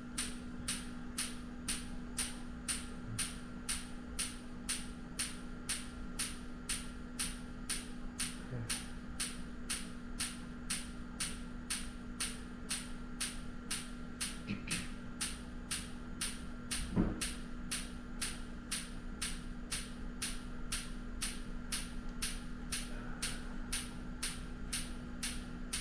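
Focused shockwave therapy applicator firing into the lower back: a steady, even click about two times a second over a constant low hum, with one louder knock near the middle.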